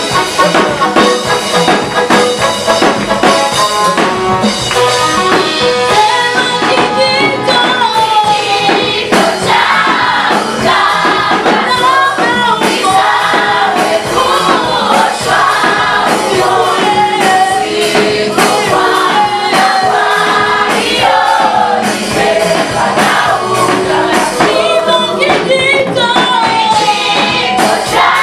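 Choir singing a Swahili gospel song over instrumental backing, with the voices coming in strongly about a quarter of the way through.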